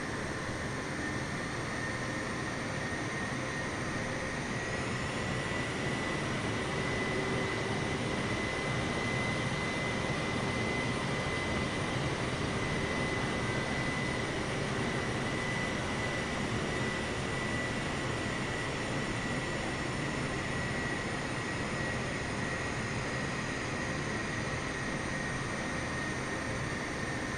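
Jet airliner's engines running: a steady rushing noise with a high whine that climbs slightly a few seconds in, swells a little, then eases near the end.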